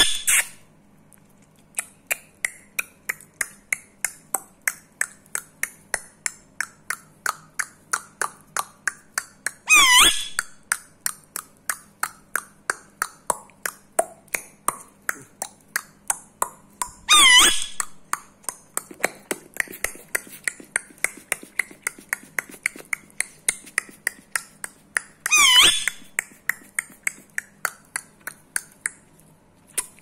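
Indian ringneck parakeet clicking rapidly and evenly, about three clicks a second. A few times the clicking gives way to a louder high call whose pitch dips and rises.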